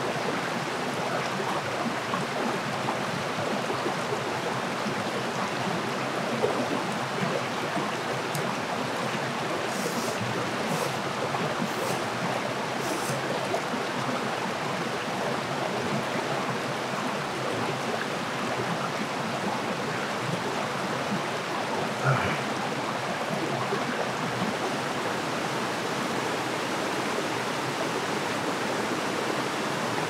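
Mountain valley stream running steadily, an even rush of flowing water.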